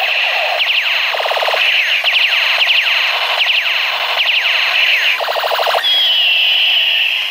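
Toy machine gun's electronic firing sound effects: a rapid string of falling zaps, two short bursts of fast buzzing, then a steady high beep near the end.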